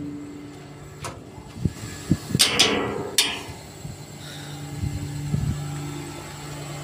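Diesel engine of a 16-wheel tipper truck idling, a steady hum that drops back in the first seconds and comes up again in the second half. A few sharp knocks and clanks sound over the first three seconds or so.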